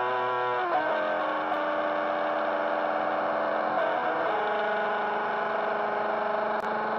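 Electric guitar played through a BOSS TB-2W Tone Bender germanium fuzz pedal with its Attack knob at maximum: long, sustained fuzzed notes and chords, changing about a second in and again about four seconds in.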